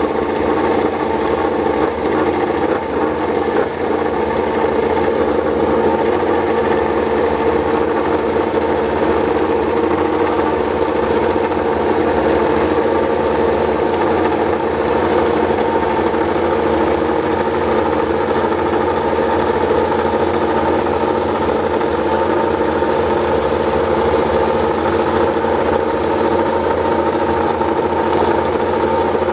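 Yamaha YZR-M1 MotoGP bike's inline-four engine idling steadily on its paddock stand.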